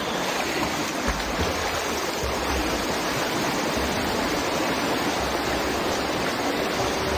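Steady splashing of water as a swimmer swims backstroke down a pool lane, arms and kicking feet churning the surface.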